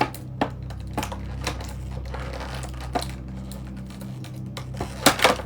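Small plastic toy pieces and their packaging being handled: scattered clicks and taps, a faint crinkle in the middle and a cluster of louder taps near the end, over a steady low hum.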